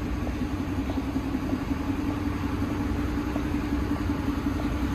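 Steady low drone of an idling bus engine, with faint footsteps about every half second.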